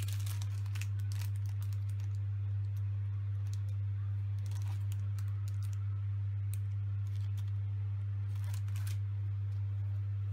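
Plastic packaging crinkling and sandpaper sheets rustling as they are handled, with scattered small clicks and taps, over a steady low hum.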